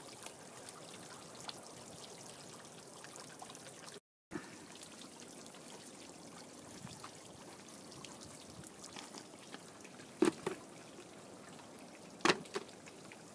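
Steady outdoor hiss with small crackles and clicks, broken by a short cut to silence about four seconds in. Near the end come two sharp knocks, the second as a book is dropped into a steel fire pit of burning books.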